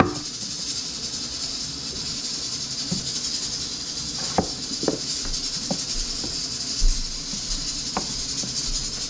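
Chef's knife cutting through raw peeled potatoes and knocking on a wooden cutting board: a handful of separate sharp knocks a second or so apart, over a steady hiss.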